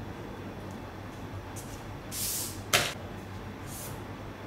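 Pattern paper and a clear plastic ruler being handled on a cutting mat: a short rustling hiss about two seconds in, then a single sharp tap, and a brief softer rustle near the end.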